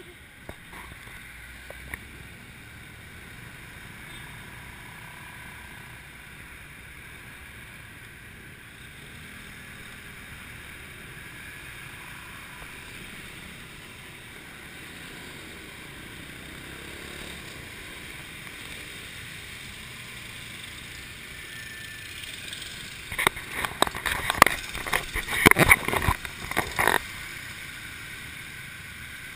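Steady ride noise of a motorbike taxi in city traffic heard from the pillion seat: engine, road and wind blending into a constant rush. About 23 seconds in, a few seconds of loud, irregular crackles and thumps break through, then the steady rush returns.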